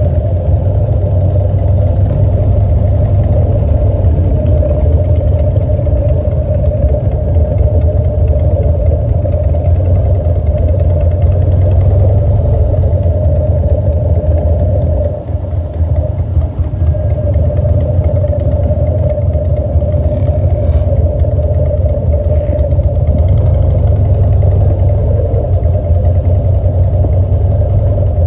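A vehicle engine running steadily at low speed while the vehicle moves slowly across a parking lot, with a brief drop in level about halfway through.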